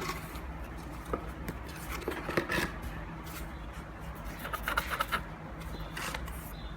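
A cat scratching and batting at cardboard boxes: scattered short scrapes and taps, clustered around the middle and near the end, over a steady low hum.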